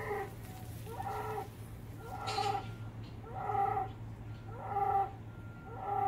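A bull calling in a regular series of short, fairly high-pitched calls, about one every second and a bit, six in all.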